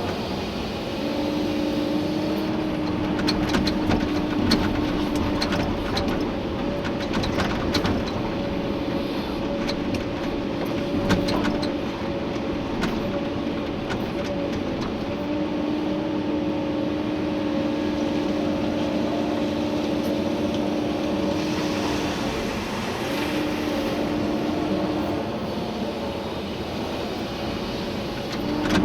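Komatsu PC290-11 excavator's diesel engine and hydraulics working steadily, with a humming tone that comes and goes several times as the machine is loaded. Scattered sharp knocks and rattles come through the first half.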